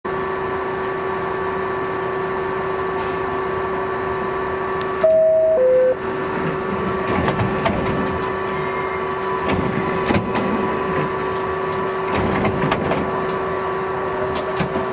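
Inside an R62A New York subway car: a steady electrical hum, then about five seconds in a two-note falling chime, the door-closing signal. After it the train starts to move, with a growing rumble and scattered clicks of wheels over the rail.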